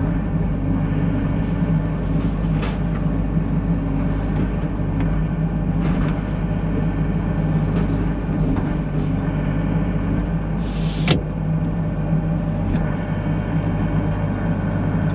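Mini excavator's diesel engine running steadily, with a short hiss and a sharp click late on.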